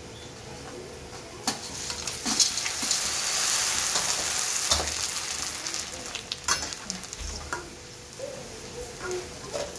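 Sun-dried crisps (vathal) frying in hot oil in a steel kadai, sizzling hard as a fresh batch goes in and puffs up, while a metal ladle stirs them, clinking and scraping against the pan a few times. The sizzle swells about two seconds in and dies down towards the end.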